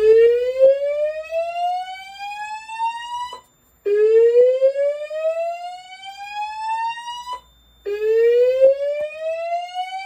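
Notifier DVC voice-evacuation fire alarm sounding its slow whoop alert tone through a fire-alarm speaker: a loud tone that sweeps upward in pitch for about three and a half seconds, repeated three times with a short break between. This is the alarm's pre-announcement evacuation tone, set off by a manual pull station.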